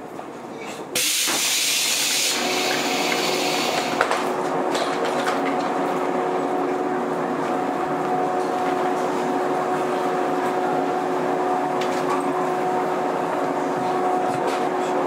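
JR 115 series electric train: a sudden loud blast of air hiss about a second in, lasting over a second. It is followed by a steady running noise with a held two-note hum.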